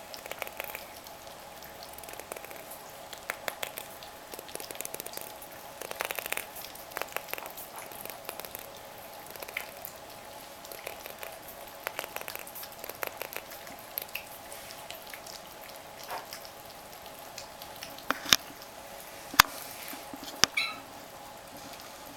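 Egyptian Mau kittens eating from a plate: many small clicks and smacks of chewing and lapping, with two sharp knocks near the end, then one short meow.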